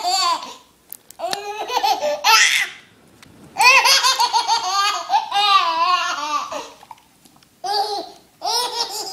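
A baby laughing hard in several bouts with short pauses between them, the longest lasting about three seconds in the middle.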